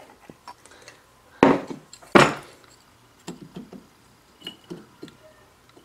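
Metal tools being handled at a lathe while a threading die is fitted onto the work. Two loud clunks come about a second and a half and two seconds in, followed by a run of light clicks and taps.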